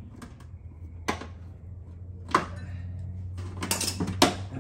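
Plastic fender clips being pried and worked loose on a Toyota 4Runner's fender and liner. Several sharp clicks and snaps, the strongest about two and a half seconds in, then a quick cluster of clicks with scraping near the end, over a low steady hum.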